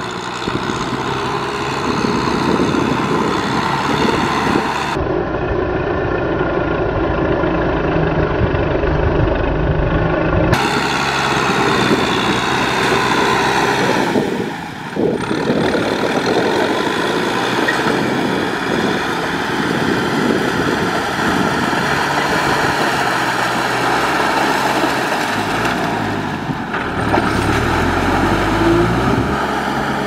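Kubota farm tractor's diesel engine running steadily under load as it pulls a disc plough through wet mud, the sound shifting abruptly several times and dipping briefly about halfway through.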